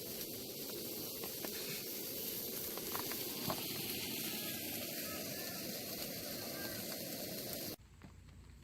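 Campfire burning with a steady hiss and a few faint crackles, cut off abruptly near the end.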